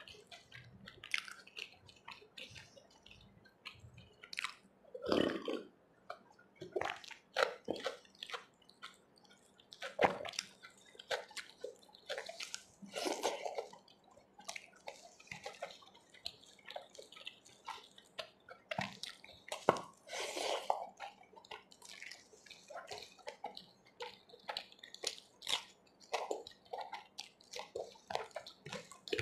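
Close-miked eating by hand: wet chewing and mouth smacks over a mouthful of chole (spiced chickpea curry), with fingers mixing the curry on the plate. Short irregular clicks and smacks, a few louder ones standing out.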